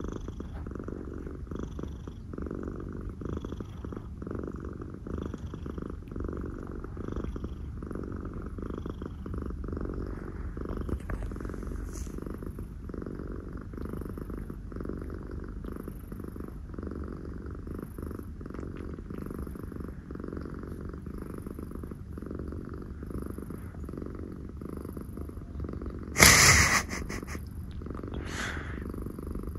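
Domestic cats purring close to the microphone, a steady low rumbling rhythm. About 26 seconds in, a loud, short burst of noise cuts across it, with a fainter one about two seconds later.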